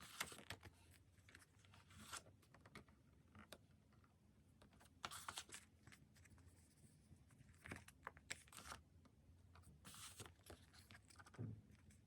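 Faint sound of paper stickers being peeled off their backing sheets and paper being handled, in short crackly bursts every second or two.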